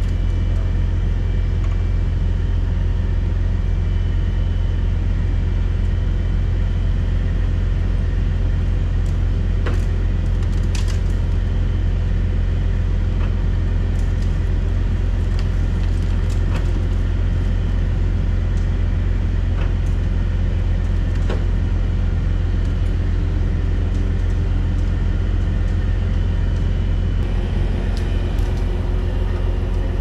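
Heavy wrecker's diesel engine running steadily while its boom and slider hydraulics are worked, with a few light clicks and clanks scattered through.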